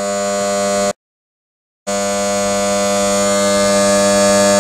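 Electric motor turning over a VW 2.0 turbo (CCTA) engine for a compression test. It makes a steady, constant-pitch drone that cuts out completely for about a second shortly after the start.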